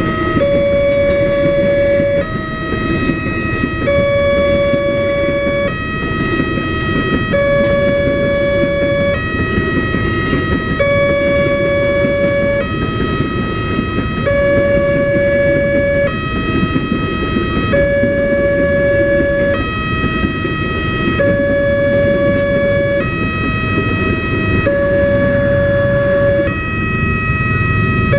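Railway level-crossing warning siren sounding its two-tone call, switching back and forth between two tones, each held just under two seconds. A steady low rumble runs beneath it.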